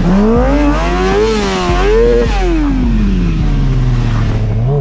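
Small stunt motorcycle's engine revved up and down through a 360° slide into a circle wheelie. The revs rise and fall a few times, then sink steadily over the last two seconds.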